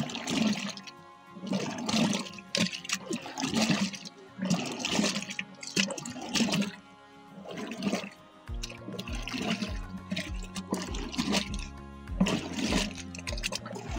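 Curd and buttermilk sloshing and splashing inside a churn as a churning stick is worked back and forth by hand, in rhythmic swishes about once a second. This is the late stage of churning, with the butter starting to gather. Background music with a steady beat comes in about two-thirds of the way through.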